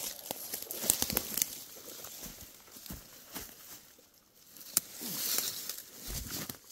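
Footsteps and rustling in leaf litter and ferns, with a few sharp clicks about a second in. Near the end comes a longer rustle with low thuds as a dead black bear's carcass is rolled over onto its back.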